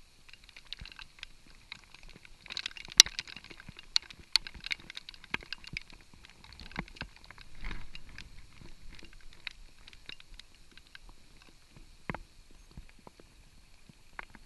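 Raindrops striking a waterproof action-camera housing in heavy rain: irregular sharp ticks, thickest and loudest about three seconds in, over a steady faint hiss.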